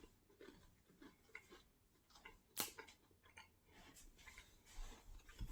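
Faint chewing and crunching of a dry plain cracker, with scattered small crackles and one sharper crunch about two and a half seconds in.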